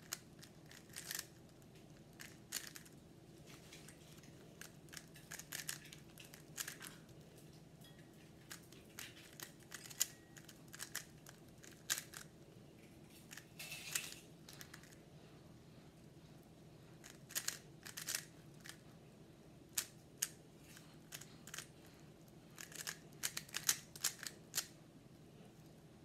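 Stickerless plastic 3x3 speed cube being turned by hand: quick runs of clicks as its layers snap round, in clusters with short pauses, and a gap of about two seconds just after the middle.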